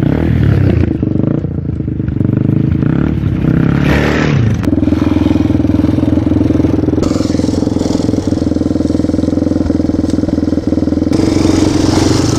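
Four-stroke dirt bike engines running under throttle on a trail. The pitch rises and falls off during the first few seconds, then the engine holds a steadier run from about five seconds in.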